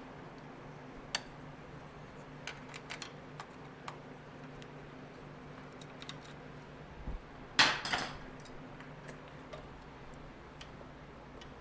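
Scattered light clicks and ticks of hand tools and small metal parts being handled during motorcycle disassembly, with a louder clatter about eight seconds in, over a steady low hum.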